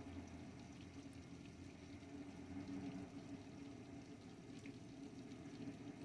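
Heavy rain falling steadily, with scattered faint drop ticks, over the low wash of cars driving through flooded street water and throwing spray. Faint overall.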